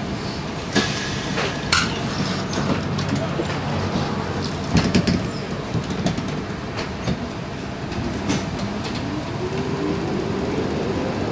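UTDC CLRV streetcar running along its track, heard from on board: a steady rumble with several sharp clacks and knocks from wheels and body in the first half. Near the end the traction motors' whine rises in pitch as the car gathers speed.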